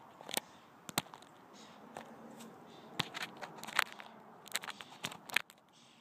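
Scattered sharp clicks and light knocks of MDF panel pieces being handled and pressed together, about ten in six seconds.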